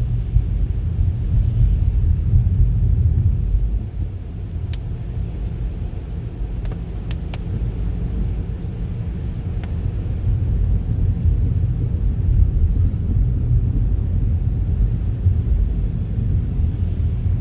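Car driving on a snowy city street: a steady low rumble of engine and road noise, dipping slightly about four seconds in, with a few faint clicks.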